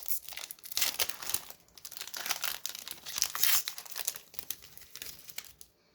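Trading card pack wrapper being torn open and crinkled in the hands, a dense crackling that stops shortly before the end.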